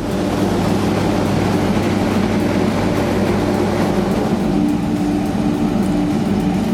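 Industrial log debarking and chipping line running steadily, a continuous dense machine noise with a constant low hum.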